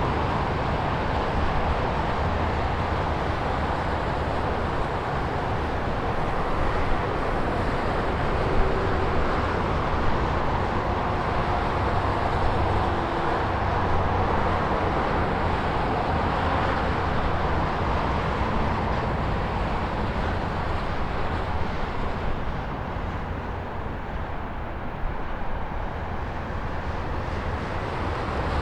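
Highway traffic: a continuous wash of cars passing, tyres and engines blending into a steady roar with a low rumble.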